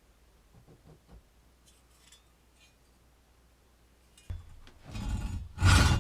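Near silence with a few faint clicks from handling a saw blade, then a knock a little after four seconds in. Near the end a curved Silky pruning saw starts cutting a small log, rhythmic back-and-forth sawing strokes through the wood, about four to five a second.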